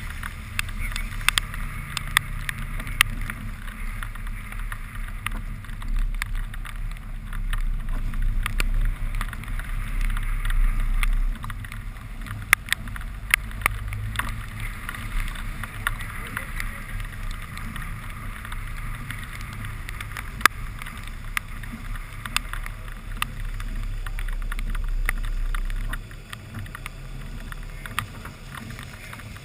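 Car engine idling with a low, steady rumble that drops in level about eleven seconds in and again near the end. Scattered sharp ticks of raindrops strike the camera housing throughout.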